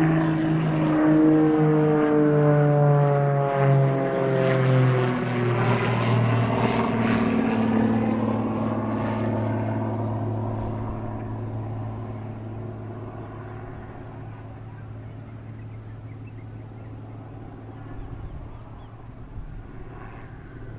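Aerobatic biplane's propeller engine passing close overhead. Its pitch drops over the first several seconds, then settles into a steady lower hum that fades as the plane draws away.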